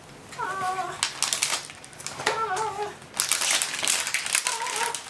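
A cat meowing three times, short wavering calls, over the crinkling and rustling of plastic packaging.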